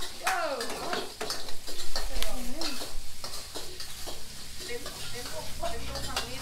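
Stir-frying in a wok: food sizzling in hot oil while a metal spatula scrapes and clinks against the pan in quick, irregular strokes.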